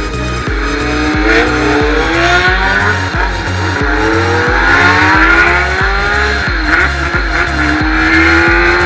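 Electronic music with a heavy, steady bass beat about twice a second and pitched synth lines that glide upward and drop back.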